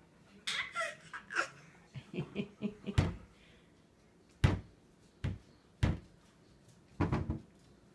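A wooden kitchen cabinet door knocking against its frame as a baby's hand bangs and pulls at it: about six sharp knocks at irregular spacing, roughly a second apart, two of them close together near the end.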